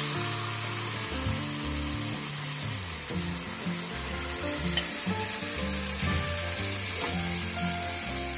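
Malpua batter deep-frying in hot oil, a steady sizzle, with background music playing slow held notes underneath.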